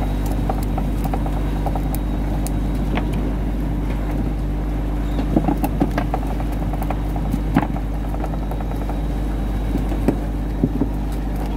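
A boat motor running with a steady drone. Scattered short clicks and knocks come in about five seconds in.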